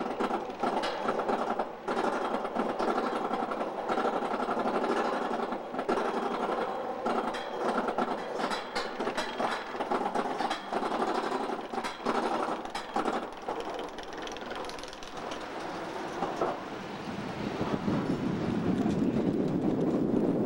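Steel Phantom roller coaster train climbing its lift hill: a steady mechanical clatter of the lift chain and track, with rapid repeated clicking. Over the last few seconds the clatter fades and a rising rush of wind takes over as the train goes over the top into the first drop.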